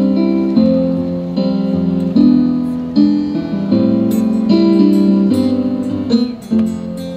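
Acoustic guitar strummed together with an electronic keyboard, playing an instrumental passage: held chords changing about every half-second to a second.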